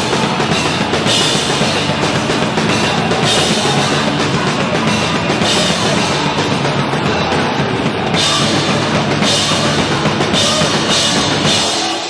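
Live punk band playing loud and fast: electric guitars over a pounding drum kit, with crash cymbals hit repeatedly in the second half.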